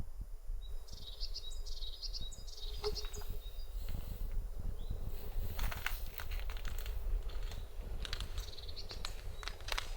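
Wind buffeting the microphone in a steady low rumble, with a small bird chirping in short high notes about a second in and again near the end. A few sharp crackles and clicks are mixed in, loudest a little past the middle.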